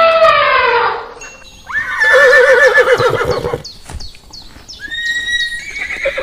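Horse neighing: loud whinnies with a quivering, falling pitch, broken by a few short clicks.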